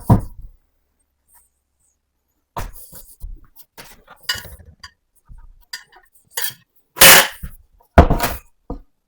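A series of knocks and clatters from work with building timber, ending in two loud thuds about a second apart.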